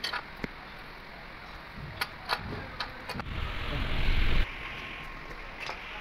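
A few sharp metallic clicks from pipe-fitting work, then a loud low rumble that builds for about a second and cuts off suddenly.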